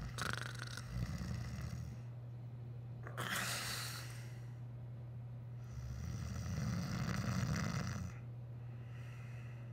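A man snoring in his sleep: three slow, breathy snores, with a steady low hum underneath.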